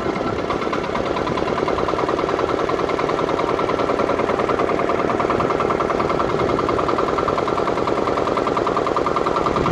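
Small boat engine running steadily with a fast, even beat.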